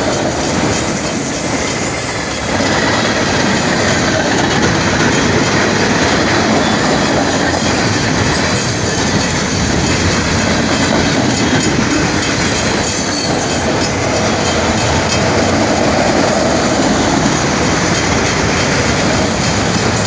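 Norfolk Southern freight train's cars rolling past, a loud steady rumble with the wheels clacking over the rail joints and squealing.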